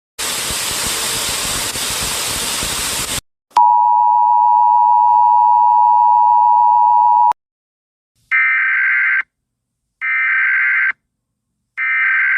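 Emergency Alert System tones: about three seconds of radio static, then the steady two-tone EAS attention signal held for nearly four seconds and cut off sharply. Then three short, evenly spaced bursts of screechy EAS digital data tones.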